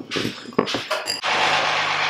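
A few short knocks and clinks, then from about a second in a steady mechanical hum with a loud rushing noise.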